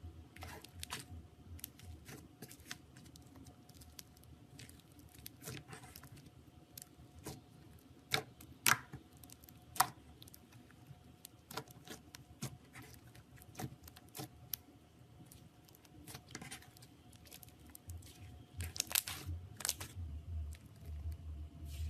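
Slime being squeezed and worked by hand: irregular small clicks and crackling pops, with a few louder pops around the middle and some low handling bumps near the end.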